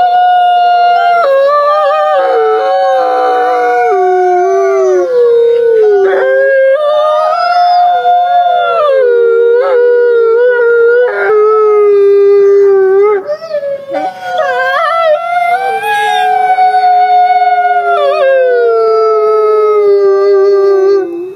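Grey wolves howling: long drawn-out howls, two voices at different pitches overlapping and gliding up and down, stopping abruptly near the end.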